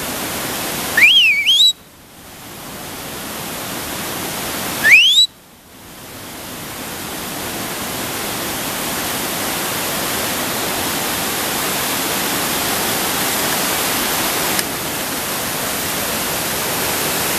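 Steady rushing of a waterfall cascading over rocks. A person whistles twice, about a second and about five seconds in, each a sharp rising whistle. The rushing briefly drops away after each whistle and swells back.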